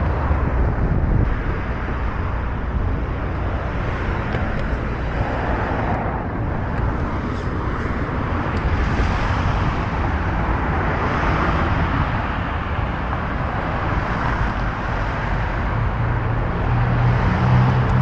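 Road traffic passing close by, a steady rush of tyres and engines. In the last couple of seconds a vehicle's low engine hum grows louder as it comes past.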